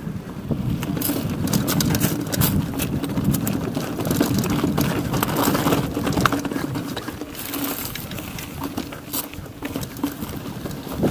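Mountain bike riding over a rough dirt track: wind rumble on the action camera's microphone with frequent irregular rattles and clicks from the bike, the rumble easing a little in the second half.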